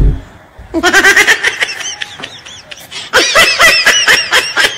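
A person laughing in two bouts of rapid, high-pitched laughs, the second starting about three seconds in; the tail of a loud boom dies away at the very start.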